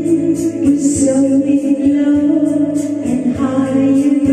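A woman singing a slow pop ballad into a handheld microphone over a karaoke backing track, holding long notes over a steady beat.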